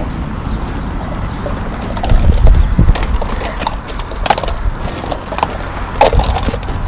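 Hollow plastic surprise eggs clacking and knocking against each other as they are handled in a pile, in scattered sharp clicks over a low rumble, with children's voices faint at times.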